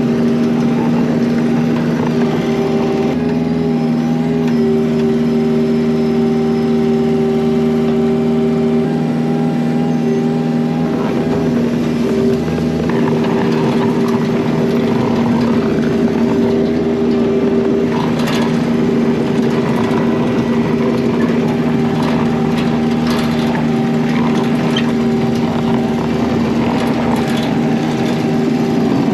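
Kubota mini excavator's diesel engine running steadily while skidding logs, its pitch wavering slightly as it works, with a few short knocks in the second half.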